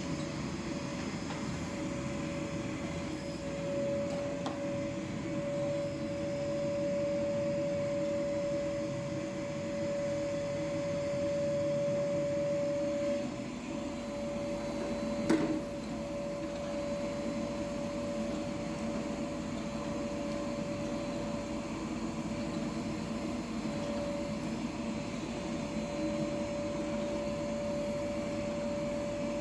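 Steady machine hum with a constant tone held throughout, and a single sharp click about halfway through.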